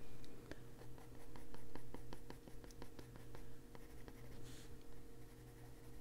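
A Derwent Warm Earth drawing pencil scratching on paper in quick, short, irregular strokes, with one longer stroke about four and a half seconds in. A steady low hum runs underneath.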